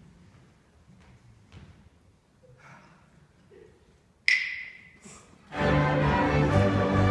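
Near quiet with faint clicks, then a single sudden bright ringing strike that dies away, and about a second later a high school string orchestra of violins, cellos and double basses comes in loudly, playing.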